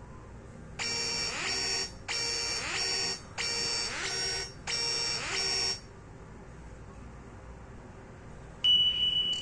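Nokia 5230 phone playing one of its preloaded ringtones through its loudspeaker: a two-part electronic alarm-like beep pattern, repeated four times. After a pause of about three seconds, another tone starts near the end.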